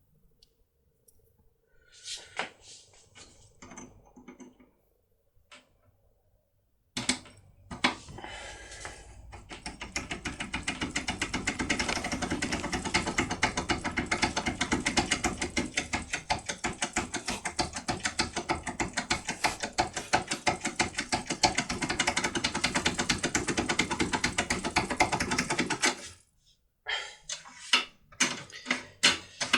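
Foil impression lockpick being worked in an AGB Scudo cylinder lock: a few scattered clicks, then from about seven seconds in a fast, even clicking that runs for nearly twenty seconds and stops suddenly, followed by more separate clicks.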